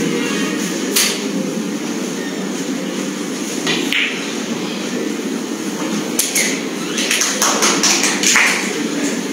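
Snooker balls clicking: the cue tip strikes the cue ball about a second in, and the cue ball clicks into the reds about four seconds in. A run of sharp clicks follows near the end, over a steady low hum of the hall.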